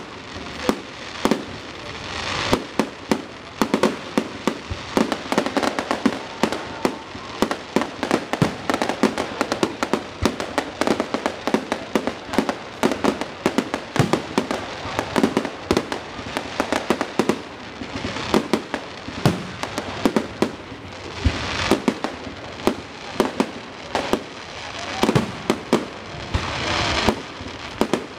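Aerial fireworks going off in a dense, continuous string of bangs and crackles, several a second, with a few short louder hissing bursts.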